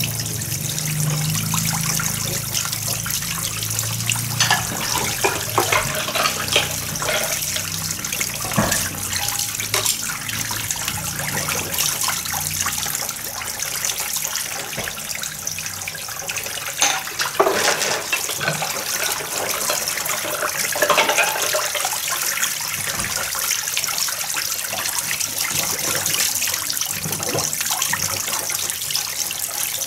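Dishes being washed by hand in plastic basins of water: steady splashing and trickling water, with plates and bowls knocking and clinking against each other now and then.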